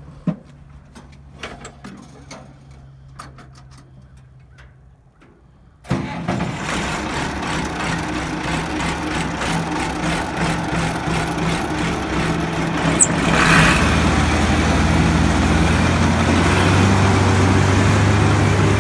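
A tractor engine idling with light clicks. About six seconds in, a loud, steady mechanical din starts suddenly as the New Holland 353 grinder-mixer's hammer mill and augers begin running off the PTO. From about fourteen seconds the din grows louder and deeper as the engine is throttled up.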